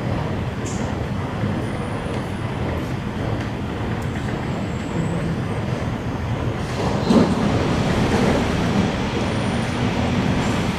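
Steady low rumble on an underground MRT platform behind platform screen doors, a train approaching in the tunnel, growing a little louder in the second half. A short thud about seven seconds in.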